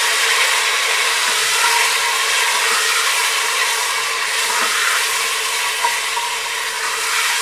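Raw chicken pieces sizzling steadily in hot oil in a pressure cooker on a high flame, stirred and turned with a plastic slotted spatula.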